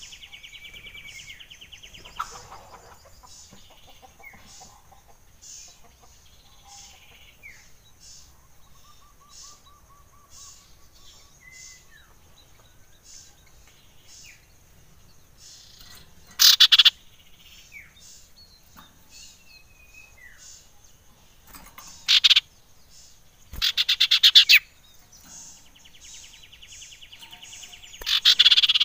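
Common iora calling: a steady run of short high chips with a few soft whistles, and a buzzy trill at the start. Loud, harsh rattling calls come in over the second half: one brief, then two close together, then another near the end.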